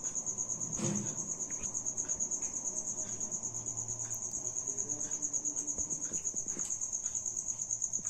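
Crickets chirping: a continuous high-pitched trill in rapid, even pulses, with a few faint clicks.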